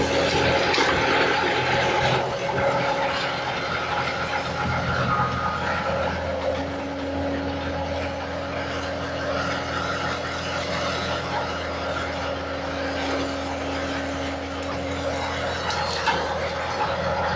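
Skid steer engine running steadily under hydraulic load while working a tree and post puller attachment, with one short knock near the end.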